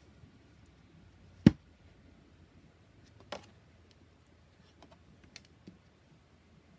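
Oracle cards and their box being handled on a table: a sharp tap about a second and a half in, a softer one a couple of seconds later, then a few faint clicks.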